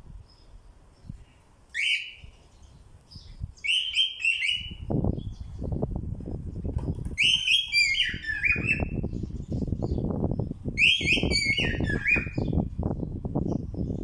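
Cockatiel calling in short falling whistled chirps, in four bouts of one to several notes. From about five seconds in, a steady patter of low knocking and rustling runs underneath.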